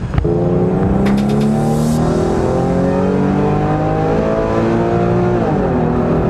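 Car engine accelerating hard under load, its note climbing steadily through one gear for about five seconds. Near the end it drops sharply in pitch on an upshift and starts climbing again.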